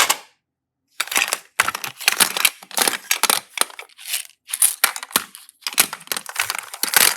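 Slime being handled and squeezed, making a dense, irregular run of crackles and crunches that starts about a second in.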